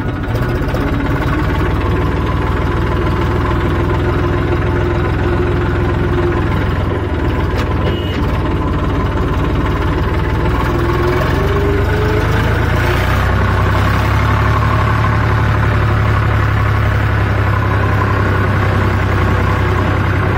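Tractor diesel engine running steadily with a low, even beat. Its pitch rises briefly about halfway through.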